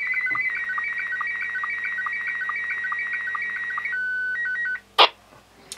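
SSTV signal played through the Quansheng handheld's speaker: fast warbling tones that hop between a few pitches, with a regular short pulse for each image line. About four seconds in it changes to a few short steady beeps and stops, followed a moment later by a brief burst of noise.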